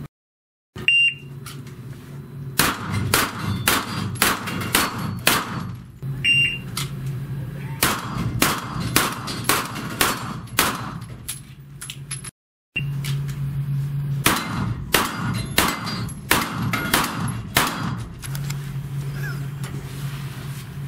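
Competition pistol firing strings of about six rapid shots. The first two strings each follow a short electronic start beep.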